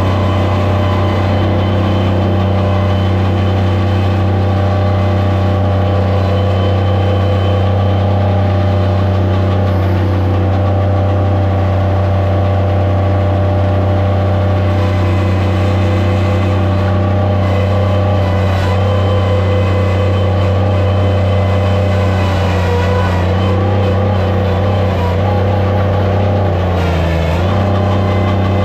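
Skid steer loader engine running steadily at high speed. Its pitch dips briefly near the end.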